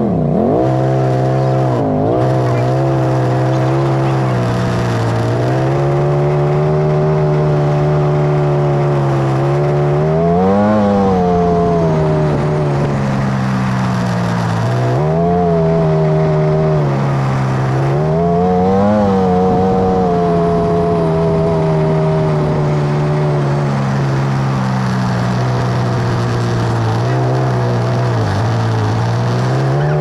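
Polaris RZR side-by-side's engine running as it drives a dirt track. The engine note rises and falls with the throttle, climbing and dropping back about ten seconds in and again a little before twenty seconds.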